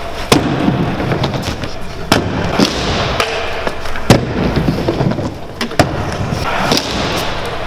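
Stunt scooter wheels rolling over skatepark ramps, broken by several sharp knocks and thuds as the deck lands after spins; the loudest lands about four seconds in.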